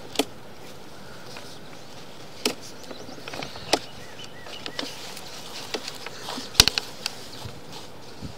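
Sewer inspection camera and its push cable being fed through a drain pipe: irregular clicks and knocks, the sharpest a little after halfway, over a steady faint hiss.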